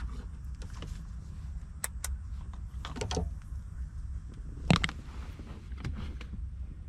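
Scattered light clicks and knocks of hands handling wires and a plastic connector, over a steady low hum.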